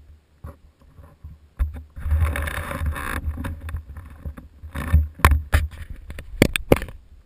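Handling noise on a bike-mounted action camera: a low rubbing rumble as the camera is swivelled round on its mount, then several sharp clicks and taps as fingers grip the camera housing.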